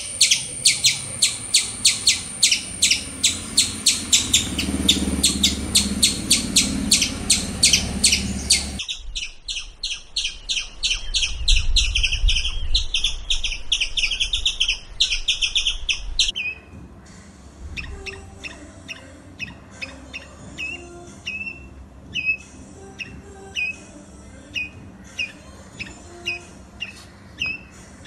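Squirrel alarm calls: a fast run of sharp, high chirps, several a second, then a denser chattering run. About halfway through it changes to sparser, short downward chirps about one a second.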